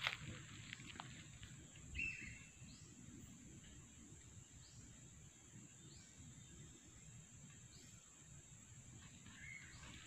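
Faint evening ambience: a steady high-pitched insect drone with short rising chirps repeating about once a second. Soft footsteps and rustling on the path run under it, with a couple of brief knocks in the first two seconds.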